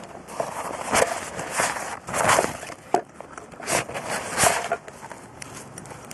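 Camping cookware and its gear being handled: an irregular run of rustles and light knocks.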